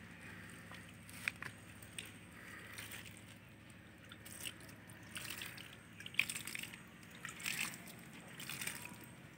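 Water poured from a plastic mug onto the soil of potted plants, splashing and dripping in short, irregular spurts.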